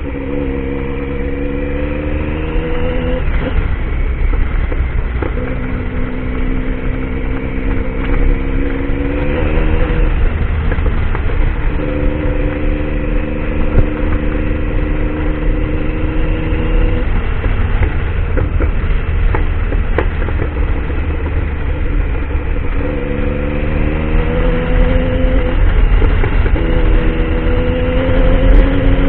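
Triumph Tiger motorcycle engine pulling under load, its pitch climbing in repeated runs broken by short pauses as the gears change, over a steady low rumble.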